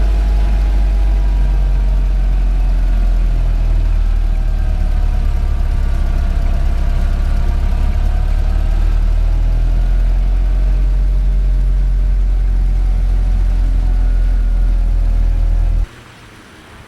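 1931 Ford Model A's four-cylinder engine running with the car under way: a loud, steady low drone whose pitch drifts slowly up and down. It cuts off suddenly near the end.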